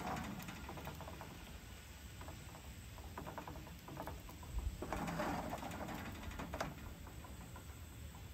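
Light, rapid rattling and scraping of a nonstick frying pan against a gas stove's grate as it is moved and turned, in short spells with the loudest about five seconds in.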